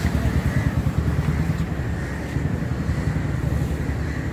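Outdoor rumble of wind buffeting the microphone, mixed with the steady noise of road traffic, a fluttering low noise with no distinct events.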